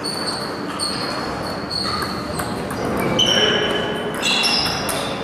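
Celluloid table tennis balls bouncing on tables and bats, many short clicks, some with a brief high ping, the most of them about three to four seconds in, from several tables in play.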